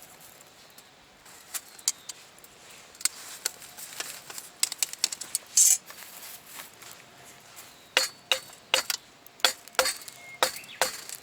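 Irregular sharp clinks and knocks of hard metal objects, several ringing briefly after the strike, coming in clusters with a brief scrape in the middle.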